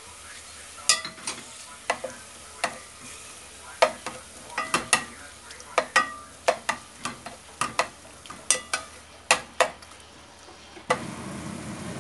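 Wooden spoon stirring beef and garlic in a stainless steel pot, clacking irregularly against the metal, over a faint sizzle of the meat sautéing in sesame oil. Near the end the clacking stops and a louder steady hiss takes over.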